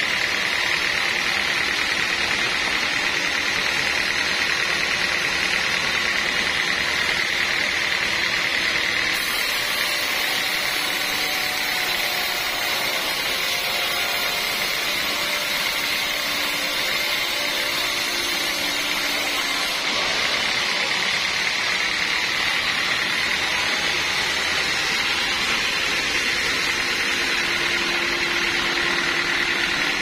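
Band sawmill blade ripping a teak beam lengthwise, a steady machine noise with a high whine held throughout.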